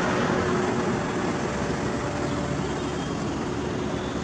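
Street traffic noise: a passing vehicle easing away over the first second or two, then a steady hum of traffic.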